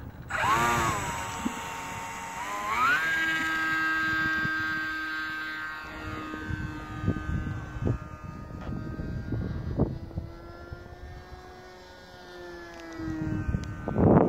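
Electric motor and propeller of a 3D-printed RC Messerschmitt Bf 109 model plane whining in flight. The pitch jumps up sharply about two and a half seconds in, then sinks slowly and stops near the end, with wind on the microphone returning.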